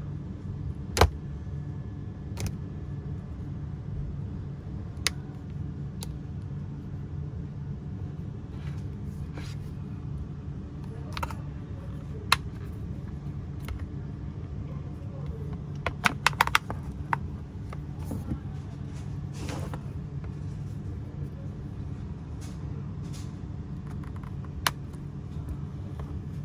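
Scattered sharp clicks and small snaps of a metal tweezer and plastic as the glued screen of a Samsung SM-T295 tablet is pried away from its frame. A quick run of clicks comes a little past the middle, all over a steady low hum.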